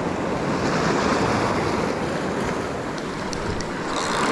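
Ocean surf surging and washing over a rock ledge in a steady rush, with wind on the microphone.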